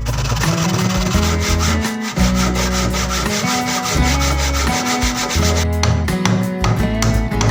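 Wood being sanded in quick, even back-and-forth strokes, a loud rasping that eases off near the end, over background music with steady bass notes.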